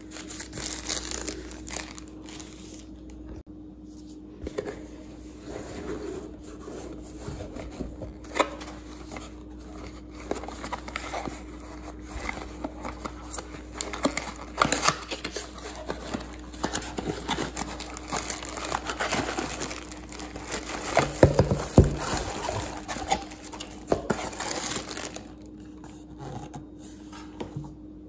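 Packaging being handled and unwrapped: irregular crinkling and rustling with scattered light clicks and knocks.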